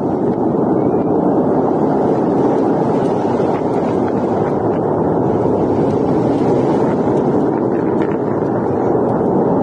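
Long March 6 rocket engine exhaust: a steady, even rumble as the rocket climbs after liftoff, with a few faint crackles.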